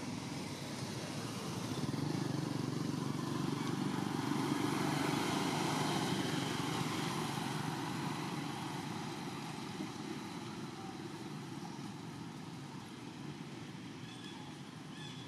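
A motor vehicle running past, its engine sound swelling about two seconds in and then slowly fading.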